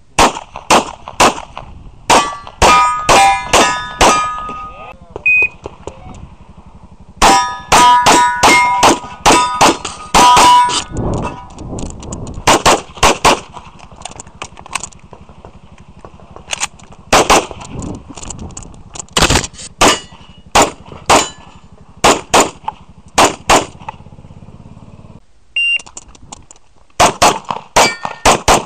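Rapid strings of shots from a Grand Power X-Calibur pistol, with steel targets ringing as they are hit. The shots come in quick bursts with short pauses between them; the ringing is strongest in two runs of steel hits, a few seconds in and again near the middle.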